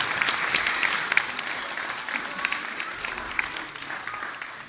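Audience applauding, with the clapping gradually fading away toward the end.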